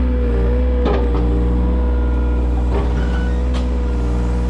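Mini excavator's diesel engine running steadily, heard close up from the operator's seat, with a steady whine over a deep hum. A few light knocks come about a second in and again near three seconds.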